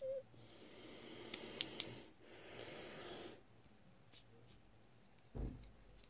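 Faint handling noise of an Opel remote key's plastic shell and circuit board being fitted together by hand: a brief squeak at the start, two stretches of rubbing with a few small clicks, then a low thump near the end.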